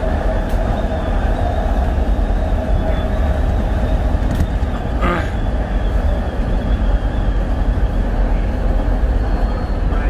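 SEPTA Market-Frankford Line elevated train running on the El, heard from inside the car: a steady low rumble of wheels on rail with a held hum over it, and one brief sharp sound about halfway through.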